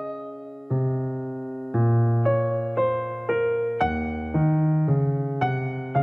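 Background music: a soft piano-style keyboard playing a slow, gentle melody of single notes and chords, a new note roughly every half second.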